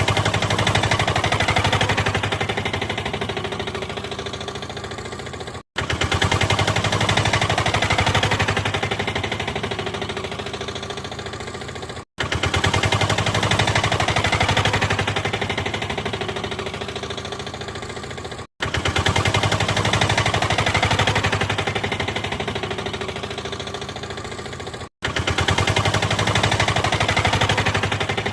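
Car engine running with a fast, even beat of firing pulses. The same few-second recording repeats four times, each pass starting loud and fading a little before a brief cut-out and restart.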